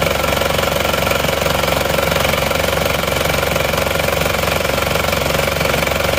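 Isuzu Panther diesel engine idling steadily under the open hood. Its crankcase is no longer pressurised after the PCV valve repair.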